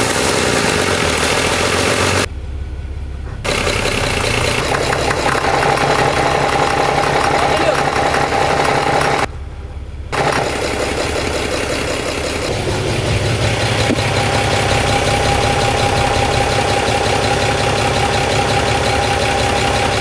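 Overhauled 230 hp Mercedes marine diesel engine running loud in an engine room during a gearbox test, with a steady whine riding over the engine. Its level dips briefly twice, and about two-thirds through the low end of the sound deepens. The owners hear a noise from the gearbox whenever it is shifted into forward or reverse, though it is quiet in neutral.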